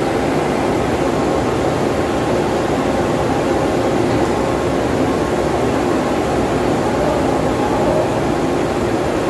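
Steady, loud mechanical drone of running industrial machinery, an even noise with a few faint steady hum tones and no break.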